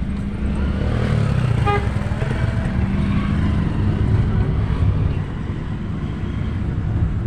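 Steady low engine and road rumble inside a moving car, with a motorcycle's engine running close alongside for the first few seconds, and a brief higher tone about a second and a half in.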